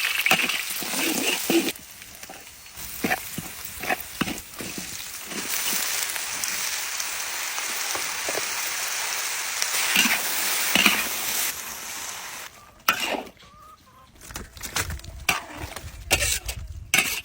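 Fish frying in a pan: a steady sizzle with scattered clicks of a utensil against the pan. About twelve seconds in the sizzle drops away, leaving scattered knocks and handling noises.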